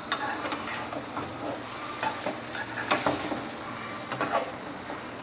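Slotted metal spatula stirring bitter gourd and potatoes frying in a metal pot, over a steady sizzle, with sharp clinks of the spatula against the pan about once a second.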